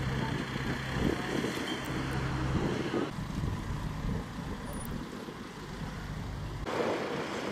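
Heavy vehicle's engine running with a steady low hum. The sound changes abruptly about three seconds in and again near the end.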